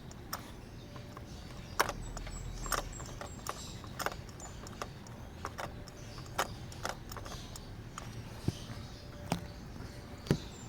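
Scattered sharp clicks and light clinks of hand tools and metal parts, about a dozen at irregular intervals, as a spark plug is being refitted in a BMW X5 E53 engine.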